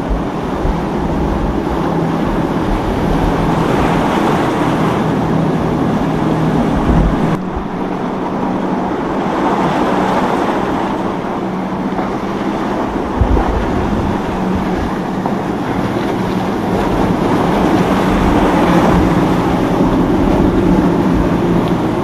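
Boat engines running with a steady drone, over the wash of waves and surf, with gusts of wind buffeting the microphone. The sound changes abruptly about seven seconds in.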